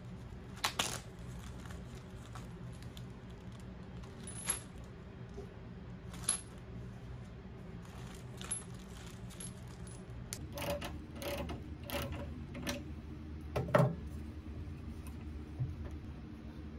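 Small metal furniture hardware clinking and rattling inside a plastic zip-top bag as it is handled, a scattering of sharp clinks that bunch together later on, the loudest near the end.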